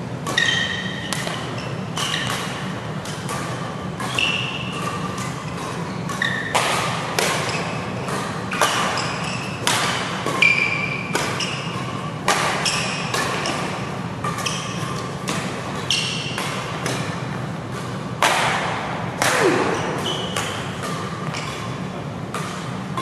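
Badminton rackets striking the shuttlecock in a fast doubles rally, a sharp crack about once or twice a second, with short squeaks of court shoes on the mat in between, over a steady low hum.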